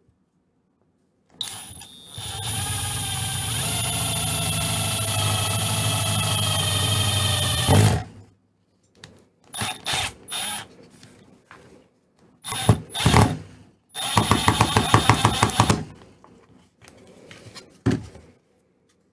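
Milwaukee Fuel cordless drill/driver running under load: one long steady run of about six seconds, then three short bursts, the last one pulsing rapidly.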